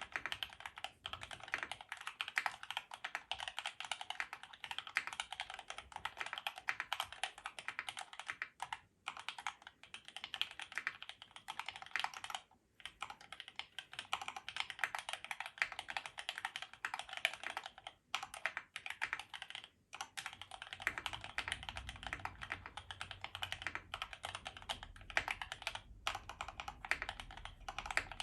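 Fast, continuous typing on a plateless Hex.4B mechanical keyboard with lubed and filmed Opblack linear switches and GMK keycaps: a dense run of keystroke clacks, broken by short pauses every few seconds.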